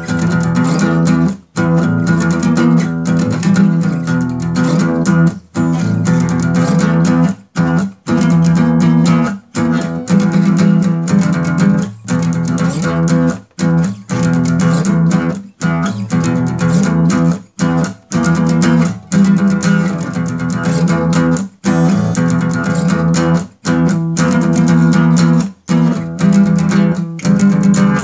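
Instrumental music track with sustained guitar-like tones, broken by brief dropouts every second or two.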